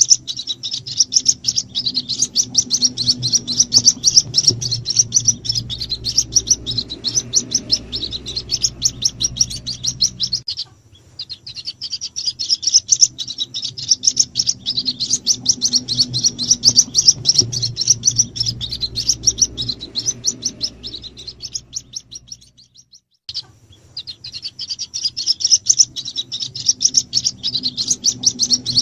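White-breasted waterhen chicks giving rapid, high-pitched peeping calls, a lure call used to draw in the parent birds. A low steady hum lies underneath, and the peeping breaks off briefly about ten seconds in and again a little past twenty-two seconds.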